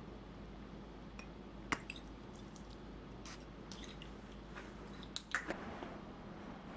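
Scattered light clicks and taps, the sharpest about two seconds in and a small cluster a little after five seconds, over a faint steady hum.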